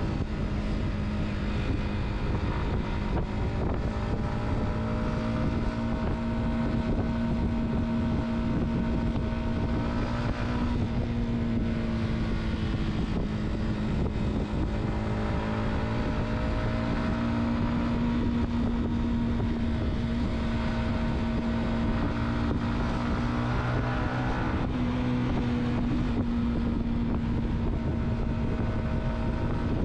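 A car driving: a steady engine hum over continuous road rumble, its pitch shifting a couple of times, with some wind on the microphone.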